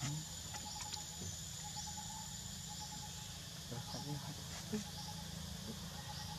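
Outdoor insect and bird chorus: a steady high insect buzz that stops about halfway, short rising chirps repeating every second or so, and a pulsing trill in short runs. A few sharp clicks, the loudest a little past the middle.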